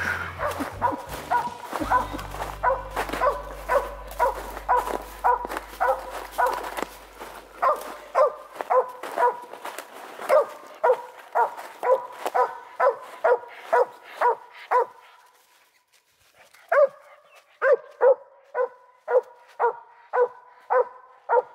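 A cur dog barking steadily up a tree, about two barks a second, with a short pause a little after the middle before it starts again: the steady chop of a squirrel dog that has treed.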